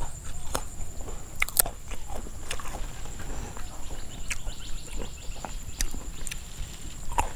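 Close-up eating and food-handling sounds: a green fruit and leaves torn and picked over, a bite of Isan lemongrass mieng taken, with scattered crisp clicks and crunches. A steady low rumble runs beneath.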